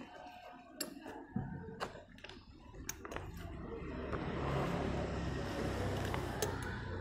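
Thin plastic sheets crinkling, with a few light knocks against glassware, as the coloured plastic covers are lifted off the beakers. From about four seconds in, a steady low rumble builds underneath.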